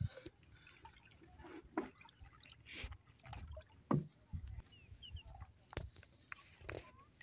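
Scattered soft knocks, scrapes and drips of hands working at a wet, muddy lump on the wooden floor of a boat, with one louder knock about four seconds in.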